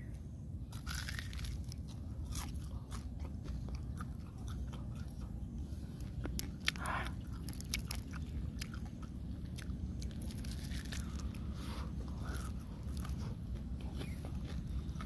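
A person chewing and crunching crisp grilled catfish close to the microphone: many small sharp crunches and clicks throughout, over a steady low background rumble.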